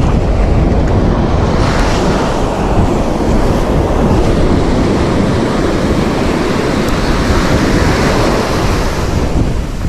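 Ocean surf breaking and washing up a beach, with wind buffeting the microphone. The wash swells about two seconds in and again through the middle of the stretch.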